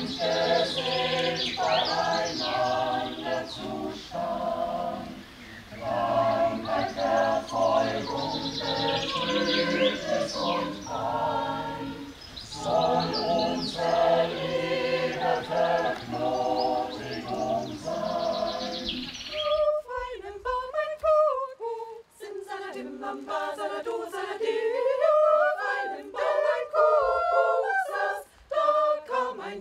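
A choir singing a cappella in phrases with short breaths between them. About two-thirds through, an abrupt cut brings in a different choir whose singing sounds thinner.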